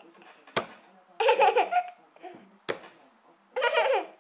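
A two-year-old girl laughing in two hearty bursts, each coming shortly after a sharp click.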